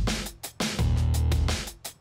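Background music with deep, held bass notes and a drum beat.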